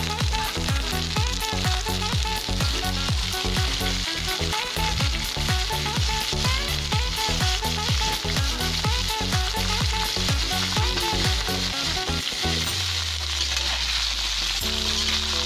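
Squash cubes frying with garlic and onion in oil in a metal wok, sizzling steadily as a metal spatula stirs them. Background music with a steady beat plays along.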